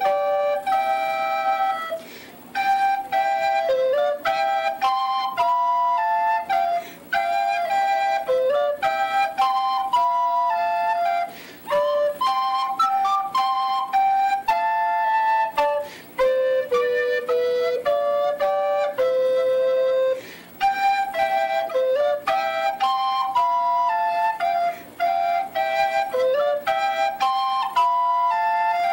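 Instrumental music: a single flute-like line playing a melody in distinct held notes, broken into phrases by short pauses every few seconds.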